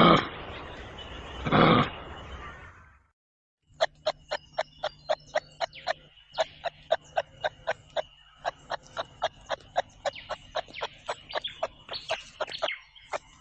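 Kangaroo vocalizing: two short, loud, harsh calls, then after a pause a long run of dry clicking clucks, about four a second.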